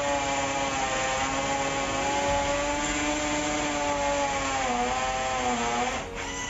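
Hujia Pro 21321 brushless cordless drill in hammer mode, driving a 6 mm masonry bit into a concrete paving block on a freshly charged battery. The motor whines steadily, sags in pitch under load about five seconds in, and eases off near the end.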